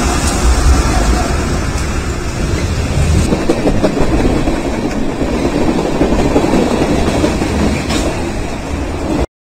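Freight train passing close by: the rumble of BNSF diesel locomotives gives way to tank cars and container cars rolling over the rails with wheel clatter. The sound cuts off suddenly near the end.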